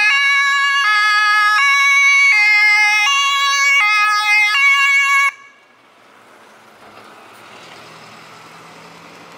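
German emergency-vehicle two-tone siren (Martinshorn), alternating between a high and a low chord about every three quarters of a second. It cuts off suddenly about five seconds in, leaving quieter engine and road noise.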